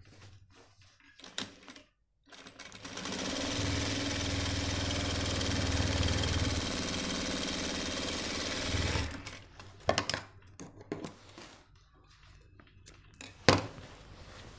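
Jack industrial lockstitch sewing machine running steadily through shirt fabric for about six seconds, starting a couple of seconds in and stopping about nine seconds in. Cloth handling and a few sharp clicks follow, the loudest near the end.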